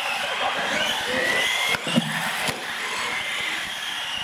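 Radio-controlled UTV racing trucks' electric motors whining, the pitch rising as one accelerates, with a brief knock about two seconds in.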